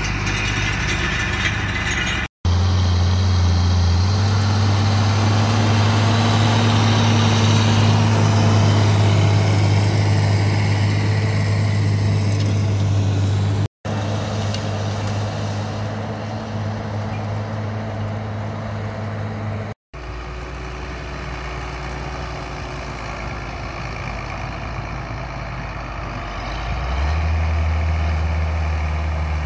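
Tractor diesel engines working under load in the field, mostly a John Deere 7800's six-cylinder diesel pulling a tillage cultivator: a steady deep drone. The sound breaks off briefly three times where the clips change, and it grows louder near the end.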